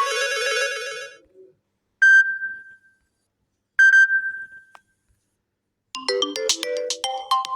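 Samsung Galaxy A04 ringtones played one after another: a melodic ringtone fades out in the first second, then a single bell-like chime sounds twice, about two seconds apart, each ringing away. A new, busier ringtone melody starts about six seconds in.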